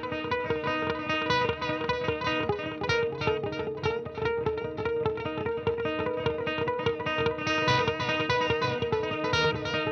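Electric guitar played through an MXR Joshua Ambient Echo delay pedal: a steady stream of quick notes layered with echo repeats over sustained ringing tones.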